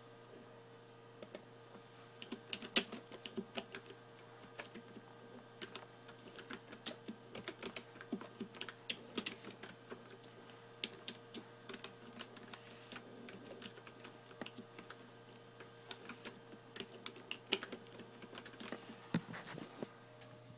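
Irregular faint clicks and taps in quick clusters over a steady low hum.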